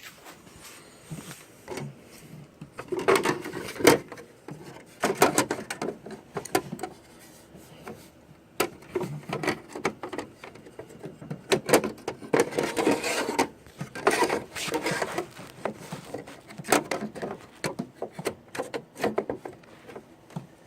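Irregular bursts of knocks, clicks, clatter and rubbing as computer hardware is handled and moved about.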